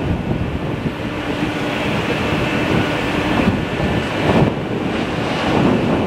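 Strong gusty wind buffeting the microphone in the blustery weather after a typhoon, with a faint steady hum for a couple of seconds midway.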